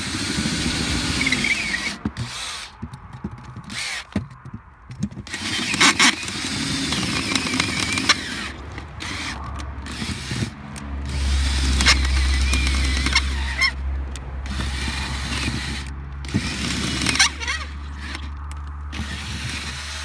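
Cordless drill with an 8 mm metal drill bit boring through the centre of a post box cam lock, destroying the pins inside. The drill runs in repeated spells with brief stops, the bit grinding against the metal with a high whine. A low steady hum comes in about halfway through.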